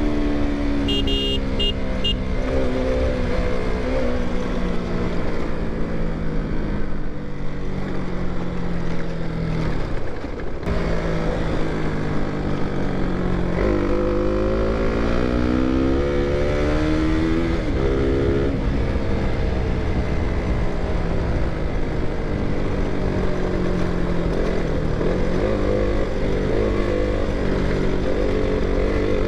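Single-cylinder KTM motorcycle engine heard from the rider's seat while riding, its pitch falling slowly as the bike slows, cutting off briefly about ten seconds in, then rising and falling with the throttle before holding steady. Wind and road noise run under it.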